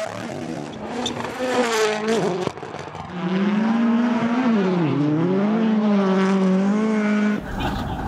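Rally cars' turbocharged four-cylinder engines at full throttle as they pass close. The revs climb over the first couple of seconds; then a louder car holds high revs, dips briefly about halfway through and picks up again. The sound changes abruptly near the end.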